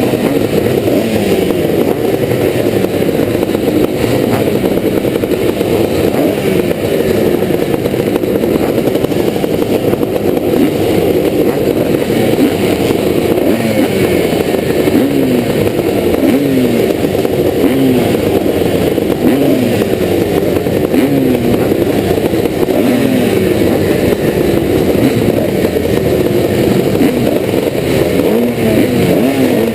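A 1986 Yamaha YZ490's single-cylinder two-stroke engine ridden hard in a motocross race, revving up and falling back over and over, its pitch dropping again and again.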